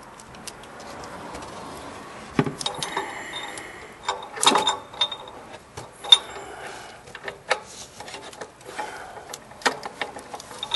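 Socket ratchet clicking in short irregular runs, with metallic clinks and a few sharper knocks, as a new oxygen sensor is tightened down into the exhaust manifold.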